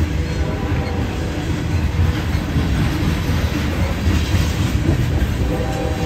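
Loaded coal hopper cars of a unit coal train rolling past: a loud, steady rumble of steel wheels on the rails.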